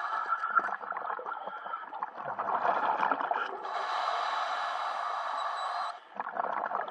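Scuba diver's breathing through a regulator, heard underwater: gurgling bubble noise, with a louder steady hiss from about three and a half seconds in that cuts off suddenly about six seconds in.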